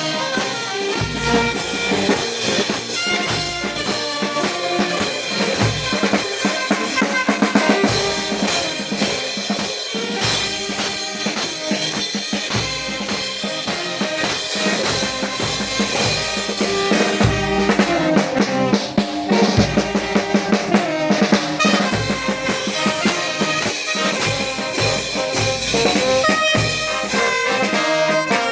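Brass band playing a pasacalle, a Peruvian street march, with brass carrying the tune over a steady beat of snare and bass drum.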